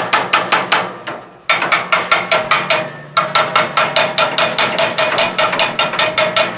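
Rapid metallic tapping, about five or six ringing strikes a second with two short breaks, on the fuel fitting of a Dickinson Antarctic marine diesel heater. It is being knocked to shake loose a clog in the fuel feed so that diesel flows through.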